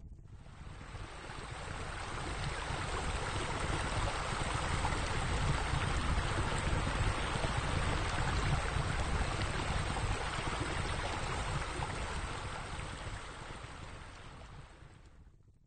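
A steady rushing noise, like an ambience bed, that swells in over the first few seconds and fades away near the end.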